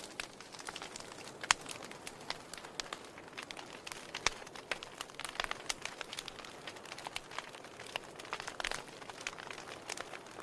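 Burning firewood in a fireplace crackling: irregular sharp pops and snaps over a soft steady hiss, with the loudest pops about a second and a half in and again about four seconds in.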